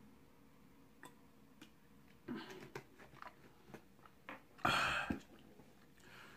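Quiet mouth sounds of drinking from a plastic water bottle: small wet clicks and swallows, then a short louder rush of noise about four and a half seconds in as the bottle is lowered.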